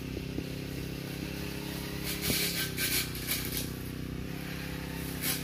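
A small engine running steadily in the background, with a few brief crisp noises about two to three and a half seconds in and again near the end.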